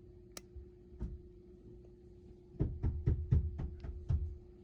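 Glock 29 pistol parts knocking and clicking as they are handled during reassembly: a sharp click, a knock about a second in, then a quick run of about seven knocks in the second half.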